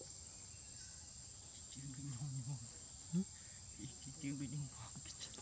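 Steady high-pitched drone of insects. Low voices talk quietly about two seconds in and again around four seconds.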